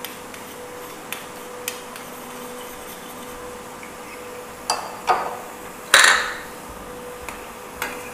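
Boondi (besan batter drops) frying in a kadai of hot oil with a steady hiss, while metal ladles knock and clink against the pan several times; the loudest clatter, with a ringing tail, comes about six seconds in.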